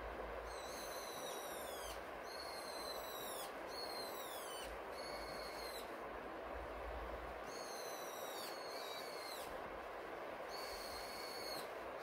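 A Eurasian jay gives a series of high, whistled calls, each about a second long and falling in pitch, with a pause of about two seconds in the middle. Under them runs a steady rush of river water and rain.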